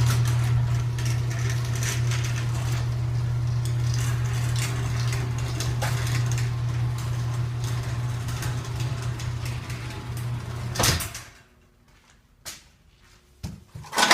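LiftMaster ATS commercial chain-drive garage door opener closing the door: a steady motor hum with the chain rattling and clicking, stopping about 11 seconds in with a short louder knock as the door comes down. A brief loud noise follows at the very end.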